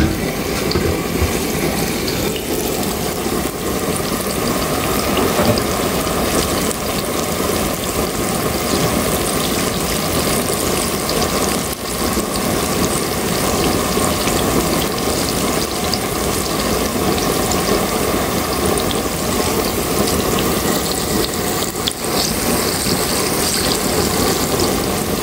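Battered jackfruit pieces deep-frying in a wok of hot oil: a steady bubbling sizzle.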